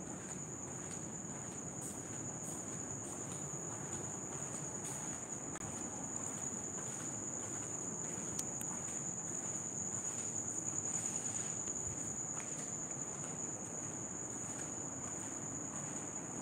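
Crickets trilling steadily in one continuous high-pitched note, over faint background noise.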